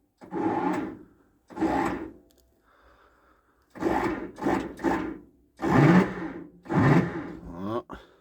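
Starter motor on a John Deere 4219T diesel whirring in about eight short bursts as the key is tried again and again, spinning without engaging the flywheel: the starter is frozen in the −20 °C cold. Near the end its pitch falls away as it spins down.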